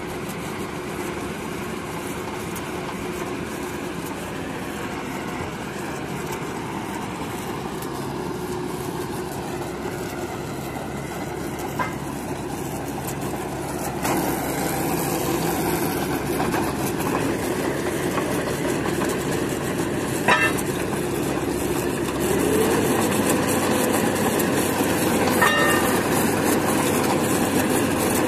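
Engine of a truck-mounted borewell drilling rig running steadily, with a few sharp metallic clinks. It grows louder about halfway through, and near the end its pitch rises and holds higher as it revs up.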